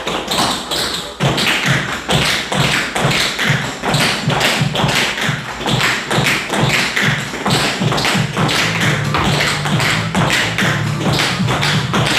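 Tap shoes striking the floor in quick, rhythmic step patterns, with music playing underneath.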